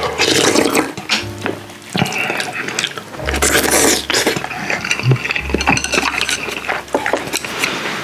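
Close-miked eating of soft tofu stew: two loud slurps, one at the start and one about three seconds in, with many wet clicks of chewing and utensils on the bowl in between.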